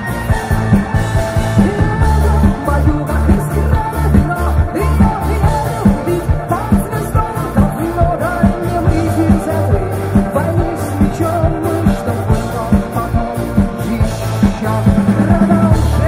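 Rock band playing live through a PA: electric guitars, bass guitar, keyboard and a steady drum beat, with a woman singing.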